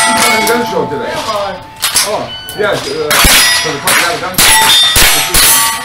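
.22 rimfire rifle firing several quick shots, each answered by the ringing clang of a steel target plate being hit.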